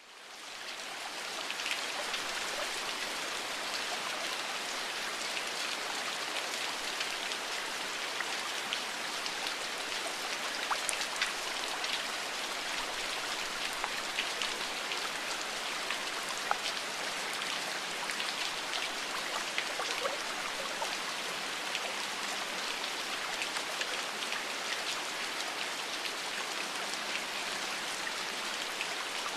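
Steady rain with many small drops pattering, over the rush of flowing water, fading in over the first second or two.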